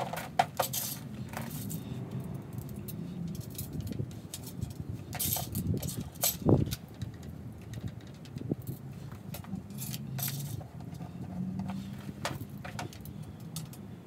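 Small metal screws, washers and nuts clinking and jangling as they are handled and fitted into a metal roof-rack frame, in scattered light clicks over a low steady hum, with one dull thump about six and a half seconds in.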